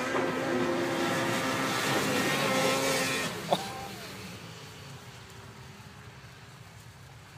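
Ski-Doo snowmobile engines running hard at a steady pitch for about three seconds, then fading away as the sleds ride off across the ice.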